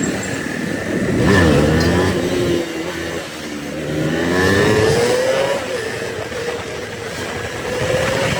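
A motor vehicle engine on the road, its pitch rising and falling several times as it speeds up and slows down, over steady road noise.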